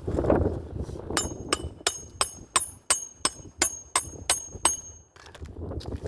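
Hammer driving a roofing nail into an asphalt shingle: about eleven quick, even strikes, roughly three a second, each with a bright metallic ring, then they stop. A short gust of wind on the microphone at the start.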